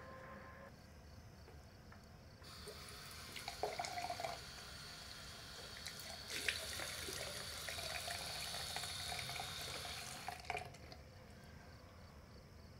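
Bathroom basin tap running into the sink. The flow comes on a couple of seconds in, grows stronger about halfway, and is shut off near the end with a short knock.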